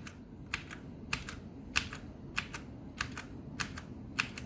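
Keys of an Atrix mechanical keyboard with brown switches pressed about seven times in a steady rhythm, each press a quick double click, stepping through its RGB lighting patterns.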